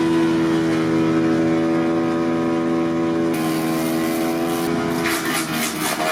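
JONCO R13P wood chipper running at speed, a loud steady engine hum. About three seconds in, a higher rushing noise joins it, and from about five seconds in a rapid, irregular crackle comes in as wood is fed in and chipped.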